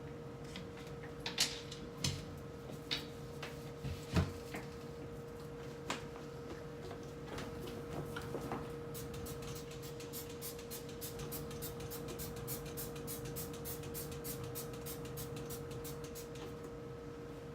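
Light knocks and clacks of items being handled during refrigerator cleaning. The knocks are scattered over the first few seconds, and from about halfway through come quick, even ticks, about three a second. A steady hum runs underneath.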